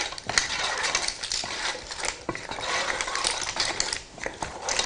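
A spatula stirring and tossing pasta in a pot, with a run of quick clicks and scrapes of the utensil against the pot's sides.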